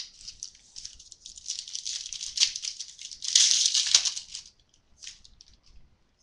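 Football trading cards being handled and flipped through: a dry rustling that builds, is loudest for about a second just past the middle, and dies away about four and a half seconds in.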